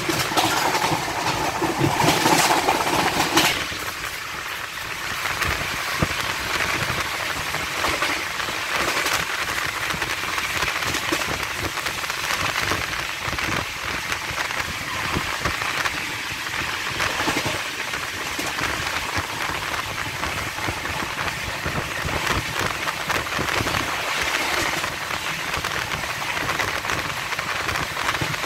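Rushing wind and wheel-on-rail noise of an express passenger train at speed, about 130 km/h, heard from an open coach door or window, with a continual patter of small clicks and rattles. It is louder and fuller for the first few seconds, then settles into a steady rush.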